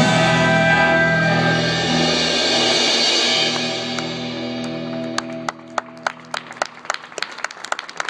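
A band's final chord ringing out: electric guitar, pedal steel guitar and bass held over a cymbal wash, all fading away over about five seconds. From about four seconds in, scattered handclaps start and build into applause.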